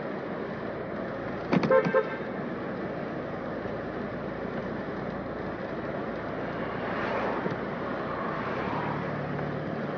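A car horn gives a couple of quick toots about one and a half seconds in, over steady street and traffic noise.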